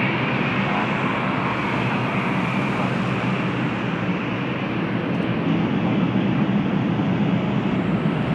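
Jet airliner's engines at takeoff thrust during its departure climb: a loud, steady, dense noise that swells slightly past the middle.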